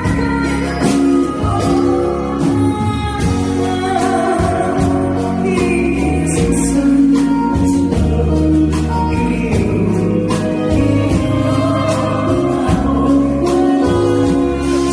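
A woman singing a Korean song with band or backing-track accompaniment and a steady drum beat.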